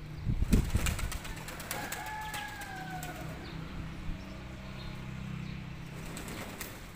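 Pigeons bathing in a shallow pan of water: a burst of wing flapping and splashing in the first second or so, then quieter, scattered splashes and wing flicks.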